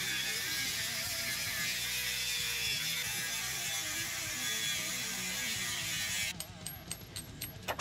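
Angle grinder with a cut-off disc running and cutting into a piece of steel rail, a steady, harsh, high-pitched grinding noise. About six seconds in the cutting sound drops off and a quick run of clicks follows.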